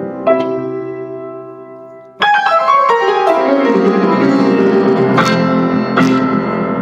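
Prepared piano, its strings fitted with felt pads, pencil grips and screws, playing. A chord rings and fades, then about two seconds in a loud struck attack sets off a quick descending run that keeps ringing, with a few more sharp accents near the end.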